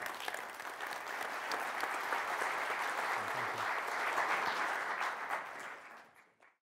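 A large seated audience applauding: dense, steady clapping that fades out about six seconds in.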